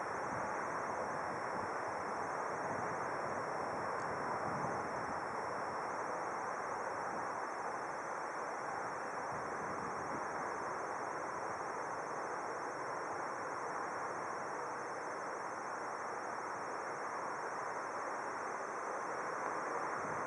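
Distant jet airliner engines across an airfield, heard as a steady, even rush with no distinct events.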